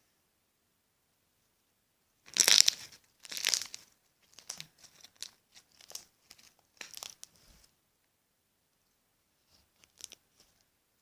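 Slime being stretched and squeezed by hand, starting about two seconds in with two loud crackling tears, then a run of smaller crackles and pops, and a few faint clicks near the end.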